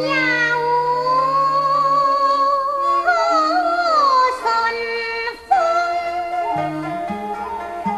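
Cantonese opera singing: a high female voice holds long, wavering notes over instrumental accompaniment.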